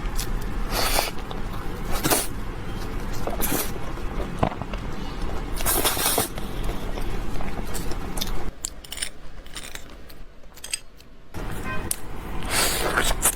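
Close-miked chewing and crunching of food in the mouth. Sharp crunches come every second or so at first, then it goes quieter for a few seconds before another crunch near the end.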